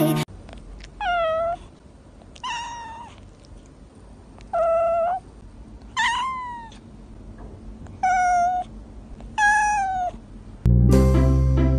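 A cat meowing six times, each meow short and spaced one to two seconds apart, several sliding down in pitch at the end.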